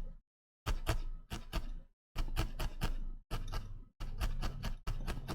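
A quick, irregular run of light clicks and taps in short bursts, cutting out to silence between them.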